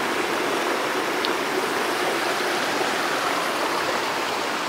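Shallow stream running steadily over stones and gravel.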